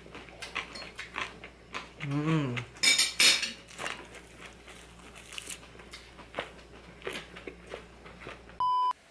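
Someone eating a lettuce wrap of pork at a table: chewing and biting with small clicks and clinks of dishes and utensils, a short hummed 'mm' about two seconds in. A short electronic beep sounds near the end.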